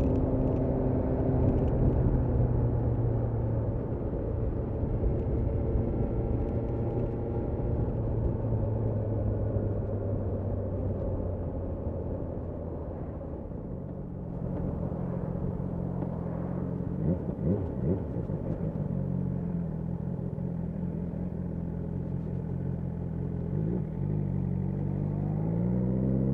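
BMW S1000R's inline-four engine on the road: its pitch falls steadily as the bike slows through the first half, holds steady at lower revs through the middle, and rises as it accelerates again at the end, over a constant rush of wind and road noise.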